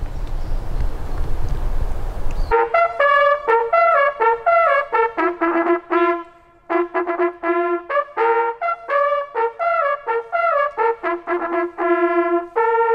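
Steady background rush, then about two and a half seconds in a hunting horn starts blowing a hunting signal: short and held notes stepping between a few natural-horn pitches, with a brief break near the middle. The signal is sounded at the hunters' gathering that opens the day's driven hunt.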